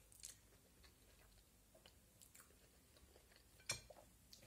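Faint chewing of a mouthful of tuna spaghetti, with small mouth sounds, and one sharp click near the end.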